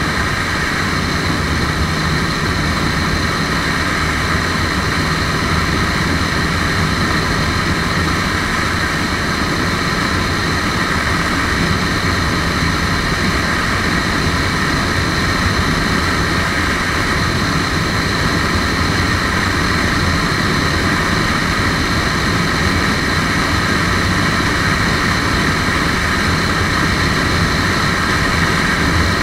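Lifan KPR150 motorcycle engine running steadily at high revs at high road speed, mixed with heavy wind rush on the microphone. The sound holds even throughout with no change of gear or throttle.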